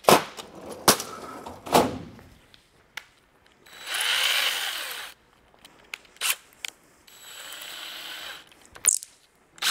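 DeWalt cordless drill run in two short bursts while its keyless chuck is gripped and tightened onto a drill bit, the chuck whirring and ratcheting, the first burst louder. Sharp clicks and clatter of tools and bits come in the first couple of seconds and again near the end.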